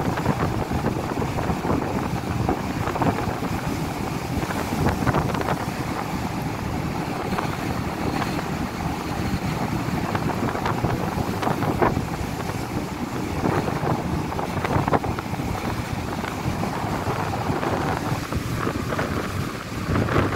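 Gale-force wind buffeting the microphone on a ferry at sea: a loud, steady rush with irregular gusts.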